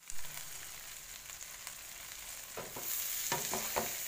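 Shrimp sizzling in hot oil in a frying pan. About two and a half seconds in, a wooden spatula starts tossing and stirring them, with several scraping knocks against the pan, and the sizzle grows louder.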